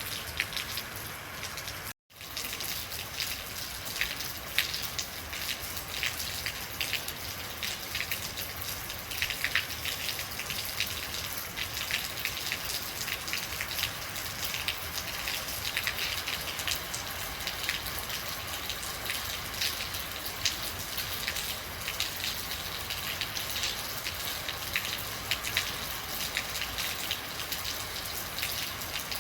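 Steady rain falling, with many separate drops heard as small sharp ticks over an even hiss. About two seconds in, the sound drops out to silence for a moment and comes straight back.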